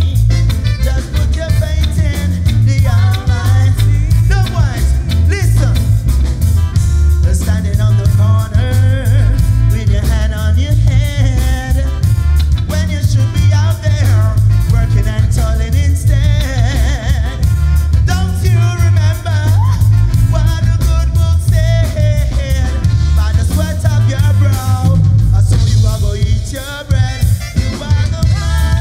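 Live reggae band playing, with a strong bass line and drum kit under keyboard, and a vocalist singing over it.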